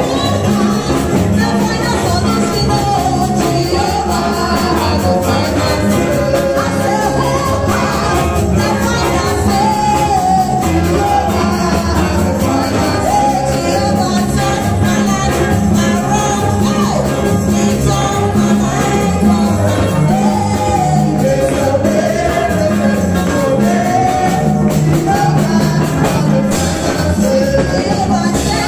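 A woman singing a gospel song into a microphone over music with a steady, busy beat and a low bass line.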